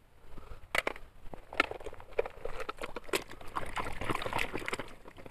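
Water splashing and sloshing as a plastic toy car is swished and rubbed by hand in shallow water, with irregular clicks and knocks scattered through it.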